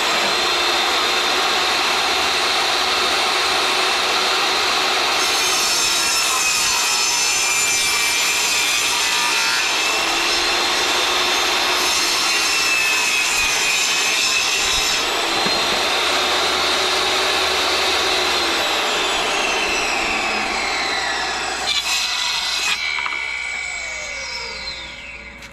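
Table saw running and cutting plywood, its pitch sagging a few times under load. Near the end it is switched off and the blade spins down with a falling whine.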